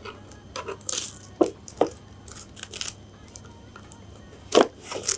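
A cardboard box being handled and opened: tape peeled and torn off the cardboard, with rustles and a few sharp knocks of the box against the table, the loudest near the end.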